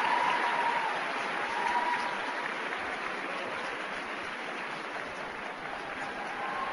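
Audience applauding, the applause slowly dying down.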